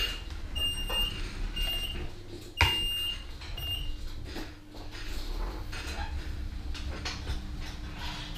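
Mobility scooter's electronic beeper sounding a short high beep about once a second, with a sharp knock about two and a half seconds in. The beeps stop about four seconds in, leaving a steady low hum.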